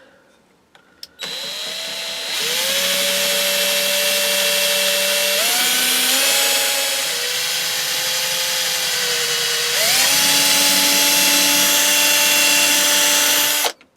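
Electric drill running with a metal-cutting bit, drilling a pin hole through a trowel handle's ferrule. The motor starts about a second in, and its pitch steps up and down several times as speed and load change. It stops just before the end.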